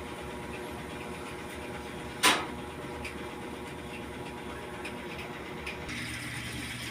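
Whirlpool 8MWTW224WJM top-load washing machine running at speed in its spin, a steady motor hum with a thin whine. A single sharp click comes a little over two seconds in. Near the end the whine stops and a lower hum with a rushing noise takes over.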